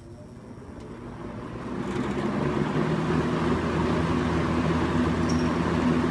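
Sears (Lasko) model 8121 20-inch box fan starting on high speed: the motor hum and the rush of air from the blades build up over about two seconds as it spins up, then run steadily.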